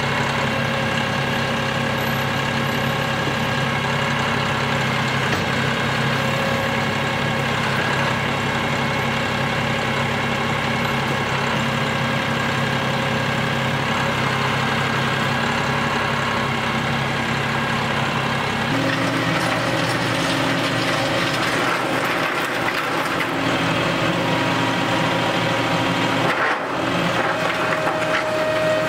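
John Deere utility tractor's diesel engine running steadily while the grapple loader works. Its note shifts abruptly about two-thirds of the way through.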